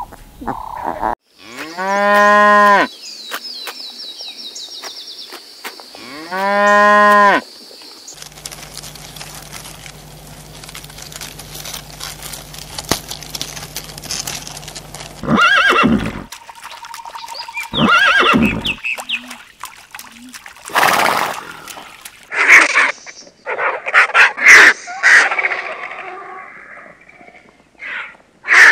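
Two long, loud animal calls, each about a second and a half and a few seconds apart, like the low moo of cattle. A mix of shorter animal calls and noises follows.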